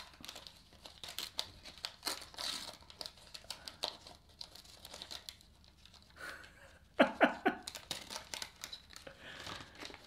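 Wax paper wrapper of a 1981-82 Topps basketball card pack being crinkled and torn open by hand, peeled from the cards it has stuck to, in a run of small irregular crackles with a louder burst of tearing about seven seconds in.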